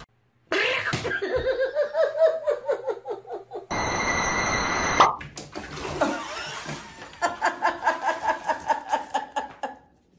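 Water rushing and splashing in a filled bathtub as a cat thrashes through it, with people laughing in fits before and after the splash.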